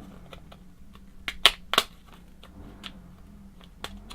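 Sharp plastic clicks and small taps from handling a pair of Pivothead camera sunglasses while fitting the lenses into the frame. Three loud clicks come close together about a second and a half in, with lighter ones later.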